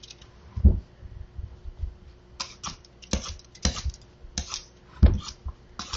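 Vegetable peeler scraping strips of skin off a firm butternut squash: a run of short, irregular strokes. There are two dull knocks, about a second in and near the end, from the squash against the plastic cutting board.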